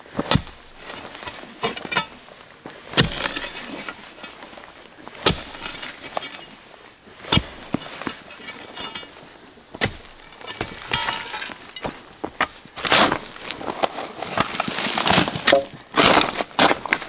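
Irregular sharp knocks and clinks, each a second or more apart, then a few seconds of dense scraping and rustling near the end.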